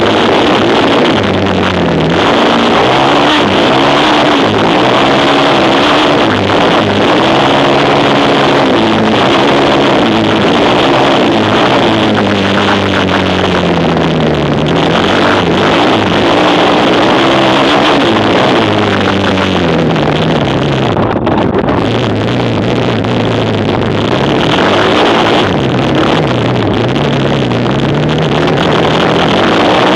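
Several racing quad (ATV) engines running hard at the same time, their pitches rising and falling as they accelerate and back off and overlapping one another.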